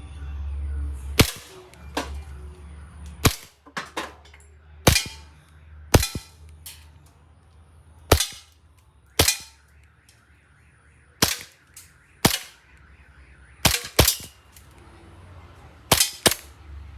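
WE Glock G-Force gas blowback airsoft pistol firing 6 mm BBs on green gas. About fifteen sharp shots come at uneven intervals, several in quick pairs.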